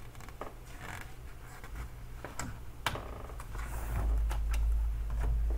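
Pages of a hardcover picture book being turned by hand: paper rustling and crinkling with small irregular clicks, with a low rumble building up in the last couple of seconds.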